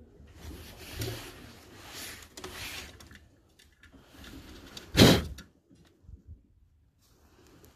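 Rustling and scuffing, then a single short, loud bang about five seconds in.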